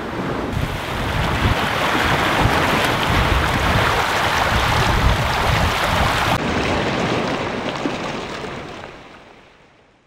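Wind buffeting the microphone and water rushing past the hull and through the wake of a Volvo Ocean 65 racing yacht under sail. The rush fades out over the last two seconds.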